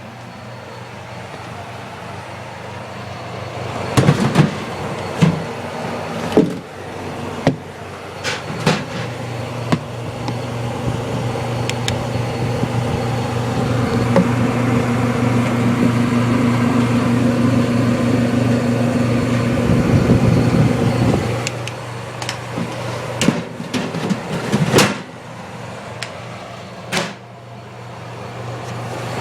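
Vintage Sears Coldspot 30-pint dehumidifier running: a steady low hum of its compressor and fan motor, which swells louder for several seconds in the middle and then drops back. Several sharp clicks and knocks come through over the hum.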